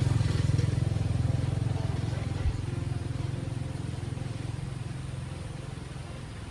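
A motor vehicle engine running with a low, fast-pulsing rumble, fading steadily as it moves away. A brief low thump about two and a half seconds in.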